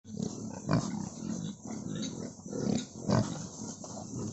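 Pigs grunting, a run of short low grunts from several animals, with a louder grunt or squeal about a second in and another about three seconds in.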